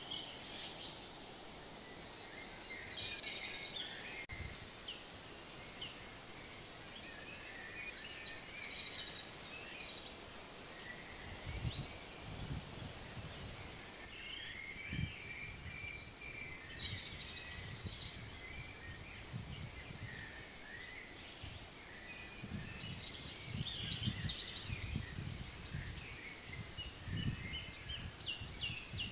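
Outdoor ambience of songbirds chirping and trilling, with gusts of low rumble, likely wind on the microphone, now and then, strongest in the second half.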